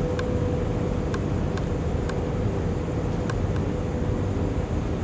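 Steady low background rumble with a constant hum and a few faint ticks.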